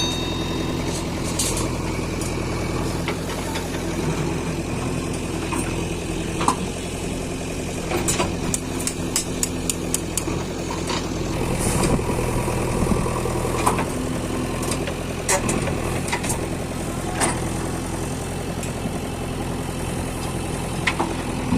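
JCB backhoe loader's diesel engine running steadily, with scattered sharp knocks and clanks from the digging work.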